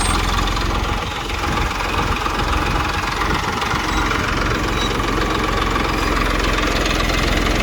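TAFE tractor's diesel engine running steadily at idle, the tractor fitted with a backhoe loader.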